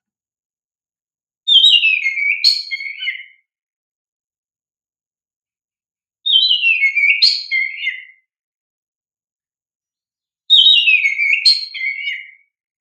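Oriental magpie-robin singing the same song phrase three times, about four to five seconds apart. Each phrase lasts about two seconds: a note that slides down from high to lower, then a quick run of varied whistled notes.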